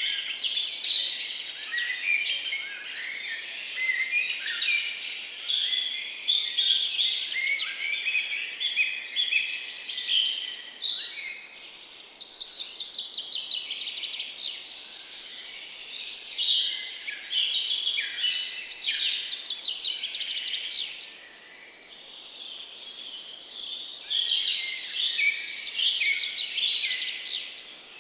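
Several birds chirping and trilling at once, a dense overlapping chorus of quick high calls with a brief lull a little past the middle.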